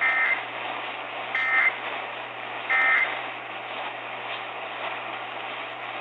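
Emergency Alert System End-of-Message data bursts: three short two-tone digital chirps about a second and a half apart, closing the alert, heard through an AM radio over steady static hiss.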